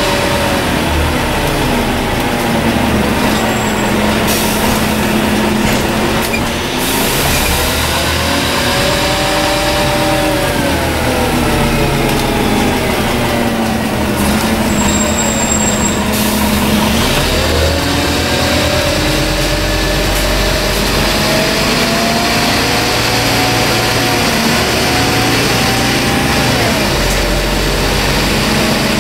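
Scania N230UD double-decker bus heard from on board: its five-cylinder diesel engine rising and falling in pitch several times as the bus pulls away, eases off and picks up speed again. Two short hisses of air, about four seconds in and again near the middle.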